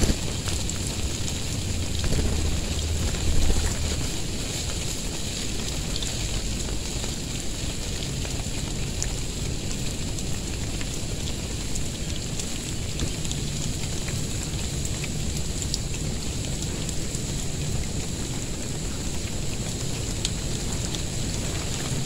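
Steady hiss of water spray from a garden water shower falling like rain on the ground and leaves, with a brief louder low rumble about three seconds in.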